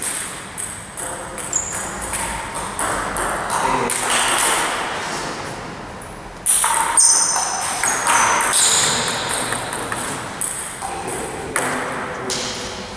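Table tennis balls striking tables and bats in a large gym hall: sharp, irregular clicks. A louder run of strikes begins suddenly about six and a half seconds in.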